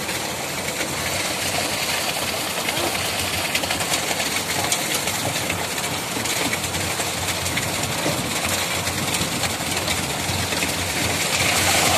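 Transit mixer truck's diesel engine running steadily while it discharges concrete down a corrugated metal chute into steel crash-barrier formwork.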